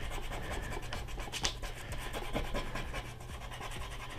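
A hard eraser rubbing back and forth over cheap sketch paper in quick repeated strokes, lifting pencil graphite off brush-pen ink lines.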